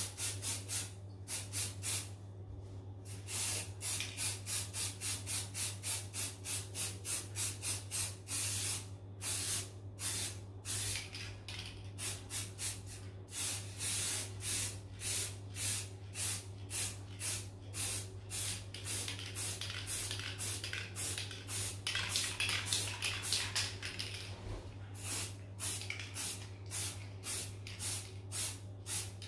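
Aerosol spray paint can spraying onto a glass panel in many short, rapidly repeated hissing bursts, with a longer continuous spray about three quarters of the way through.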